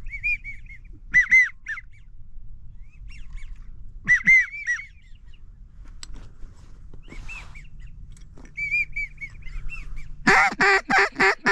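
Repeated high, arched wigeon whistles in short clusters, followed near the end by a loud, fast run of about eight duck quacks.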